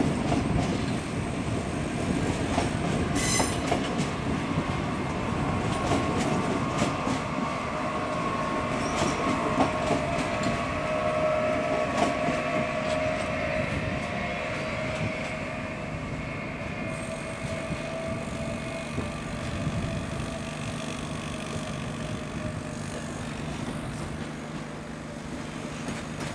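A Renfe Cercanías electric commuter train rolls slowly past over pointwork, wheels clicking over the rail joints. A wavering metallic whine runs through the middle, and there is a short hiss about three seconds in.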